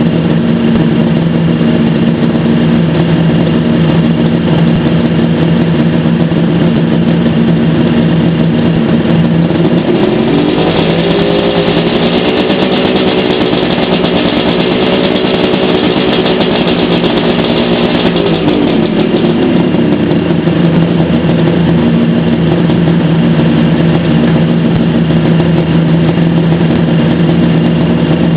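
Kawasaki H1D's two-stroke three-cylinder engine running on its first start after a rebuild: it idles steadily, is held at raised revs for about eight seconds from about ten seconds in, then drops back to idle.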